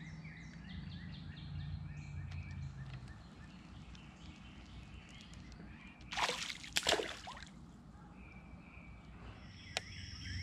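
A hooked fish splashing and thrashing at the water's surface in a short flurry about six seconds in, over faint steady chirping in the background.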